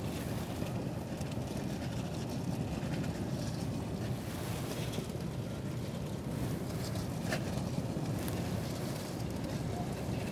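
Steady low rumble of a vehicle running, with wind noise on the microphone and a few faint ticks.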